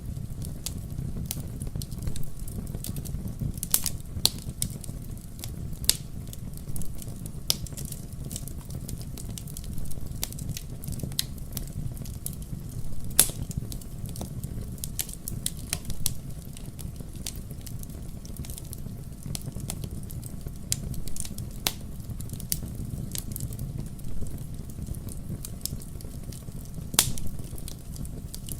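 Wood fire burning in a fireplace: a steady low rumble of flame with sharp, irregular crackles and pops from the burning logs, a few of them louder, including one about thirteen seconds in and one near the end.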